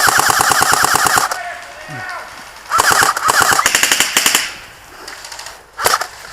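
ICS M16A3 airsoft electric rifle firing full-auto: two long bursts of rapid, evenly spaced shots and a short burst near the end. It has a strained sound, as if it is dying, which its owner says it isn't.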